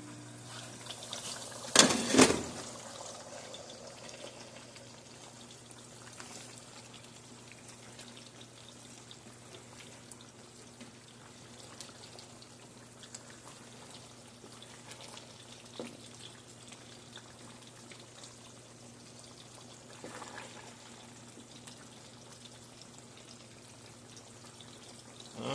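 Faint liquid trickling over a steady low hum, with two loud knocks close together about two seconds in.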